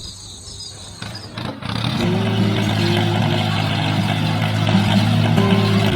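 A motor or engine running steadily with a low hum, starting loud about two seconds in after a quieter opening.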